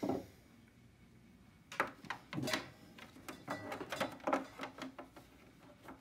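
Hands handling a USB webcam and its cable: a run of small plastic clicks, taps and rustles, starting about two seconds in after a quiet moment.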